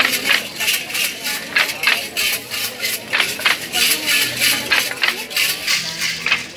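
Matachines dancers' hand rattles (sonajas) shaken together in a steady dance rhythm, with voices alongside.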